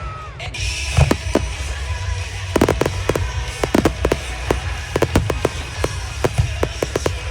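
Fireworks bursting, many sharp bangs and crackles in quick succession that grow denser a few seconds in, over music from loudspeakers.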